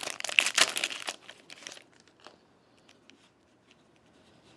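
Trading card pack wrapper crinkling and tearing as the pack is opened, a dense crackle for about the first second that thins to a few scattered crinkles and then stops.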